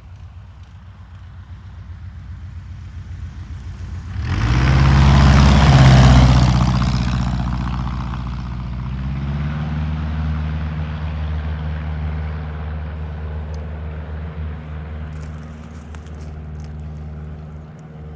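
Rans S21 light aircraft's engine and propeller, growing louder to a peak about four to seven seconds in, then a steady drone.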